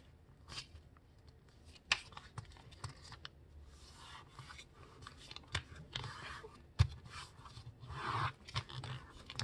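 Sheet of printer paper being folded in half by hand: crisp crinkles, rustles and sharp creasing clicks as the thick folded layers are bent over and pressed flat.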